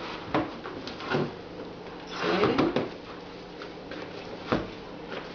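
Hands kneading sticky challah dough in a plastic mixing bowl: a few irregular soft knocks and squishes, with the loudest cluster a little past two seconds in and a sharp knock near the end.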